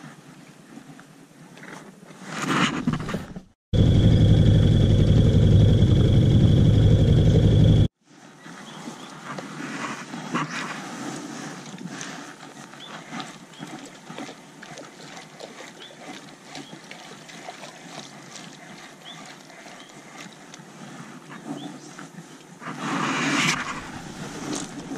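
Fishing with a spinning rod from a boat: two short swishes of a cast, with light ticking of the line being retrieved between them. About four seconds in, a loud steady motor hum with a high whine cuts in for about four seconds and stops abruptly.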